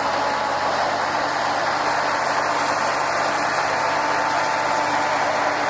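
A vehicle engine running steadily, with an even noisy hum and a faint steady tone through it.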